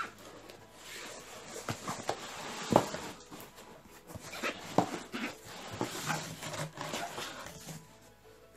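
Cardboard shipping boxes being handled and shifted: irregular rustling, scraping and knocking, with one sharp knock about three seconds in.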